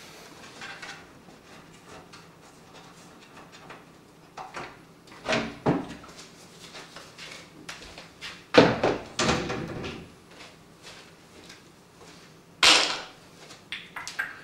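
Hardware being handled: a few clunks and rattles, the loudest around five, nine and thirteen seconds in, over a faint steady hum.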